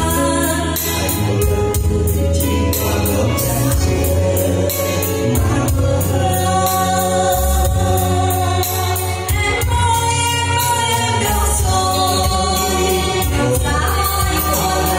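A man and a woman singing a duet into microphones over amplified musical accompaniment with a steady bass line.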